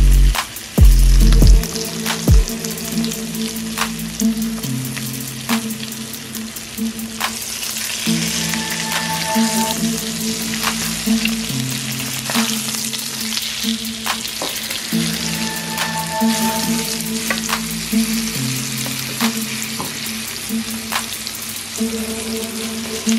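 Floured snapper fillets frying in hot oil in a pan, a steady sizzle with scattered spits and crackles that grows louder partway through. Background music plays under it.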